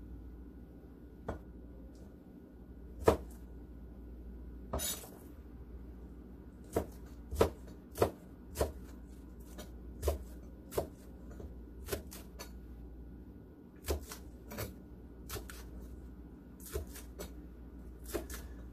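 Chef's knife chopping green onions on a plastic cutting board: separate sharp knocks of the blade striking the board, a few at first, then a run of a dozen or so spaced about half a second to a second apart.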